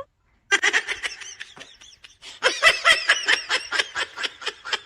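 Someone laughing in quick, high-pitched bursts, starting about half a second in and getting denser and louder partway through.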